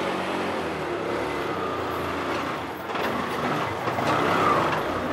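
A motor vehicle passing close by on a city street, its noise swelling to a peak about four seconds in.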